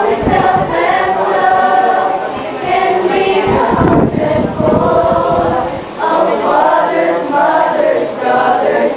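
A group of school students, boys and girls together, singing a song in chorus, reading the lyrics from sheets.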